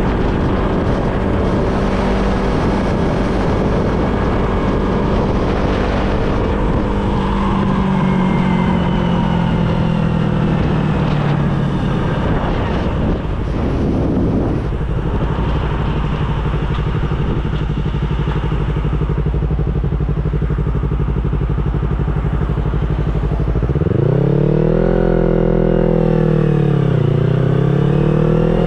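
Yamaha R25 parallel-twin engine running steadily under way. Its note sinks slightly partway through, then near the end climbs, falls and climbs again.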